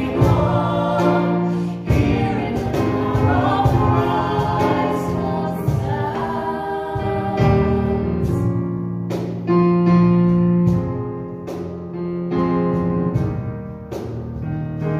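Worship song sung by a small group led by women's voices, with keyboard accompaniment; the singing stops near the end, leaving the keyboard playing.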